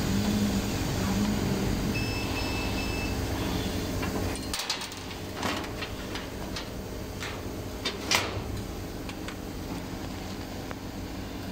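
CO2 laser cutting machine running while it cuts an acrylic sheet: a steady mechanical hum, pulsing in the first couple of seconds. A little under halfway through, the low part of the hum drops away, and scattered sharp clicks and knocks follow, the loudest about eight seconds in.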